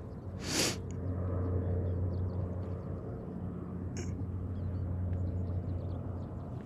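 A bass released by hand splashes briefly about half a second in, then a steady low electric hum from the kayak's bow-mounted trolling motor runs on.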